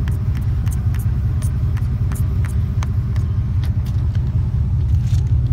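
A steady low rumble with light clicks and knocks scattered through it.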